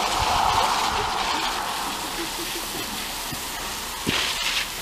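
Garden hose spray nozzle running, a steady hiss of water spraying onto a concrete patio and plants. A brief knock a little before the end.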